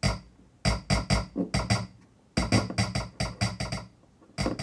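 A computer's short electronic volume-change blip, repeated about fifteen times in quick uneven runs as a keyboard volume wheel is turned step by step.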